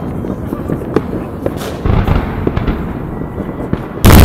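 New Year's fireworks and firecrackers going off in the distance: scattered pops and cracks over a steady low rumble, with a sudden much louder blast just before the end.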